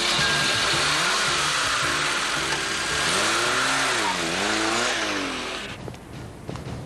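An engine revving, its pitch dipping and rising, over a loud rushing noise that dies away near the end, with music underneath.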